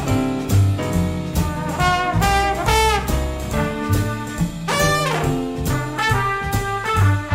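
Big band jazz played live, with the horn section of trumpets, trombones and saxophones playing together over a bass line.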